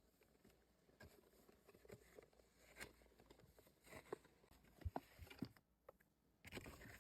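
Faint handling of cardboard box and packaging being opened: scattered soft taps and rustles, a few slightly sharper clicks near the middle.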